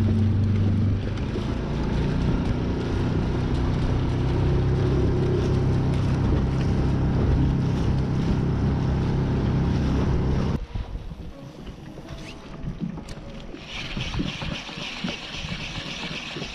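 Small boat motor running steadily on a kayak under way through choppy water, with water splashing along the hull. About ten seconds in the motor sound cuts off abruptly, leaving quieter wind and water noise with a hiss.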